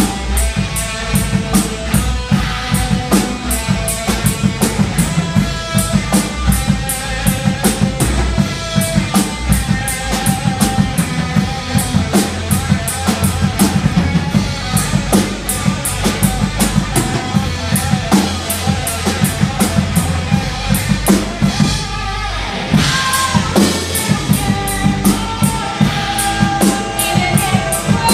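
A live metal band playing: fast, steady drum-kit hits over electric guitar and bass guitar. About three-quarters of the way through, the band drops back for a moment, then crashes back in at full force.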